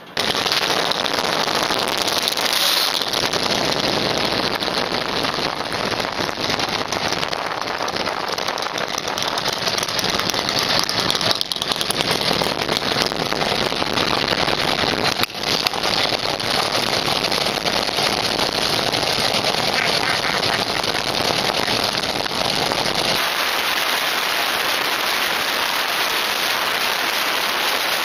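Rushing wind and road noise on a motorcycle-mounted camera while riding, a loud, even roar with no clear engine note. The deep part of the roar drops away near the end.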